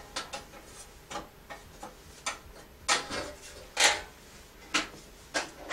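Irregular light clicks and knocks of a Camp Chef Rainier camp stove being handled, metal parts and lid worked by hand, with louder clacks from about two seconds in and the loudest at the very end as the lid is swung shut.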